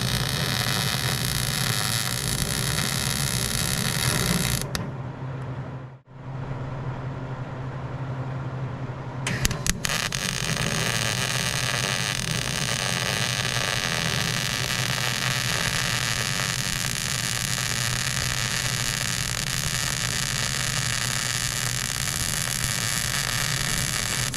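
Electric arc welding on the steel trailer frame: a steady hiss of the arc over a low hum. The arc stops about five seconds in and strikes again with a few brief crackles a little before the ten-second mark, then runs steadily on.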